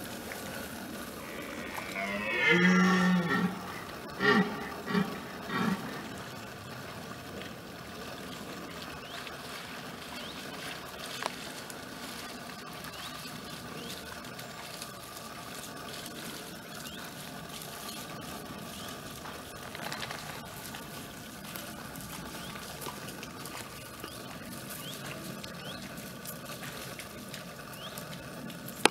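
Red deer stag roaring in the rut: one long roar about two seconds in, then three short grunting roars in quick succession.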